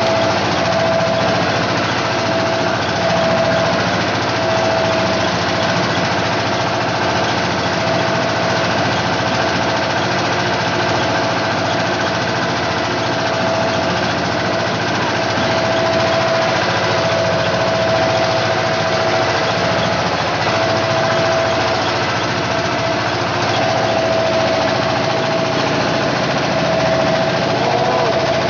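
Inboard engine of a small wooden fishing boat running loudly and steadily under way.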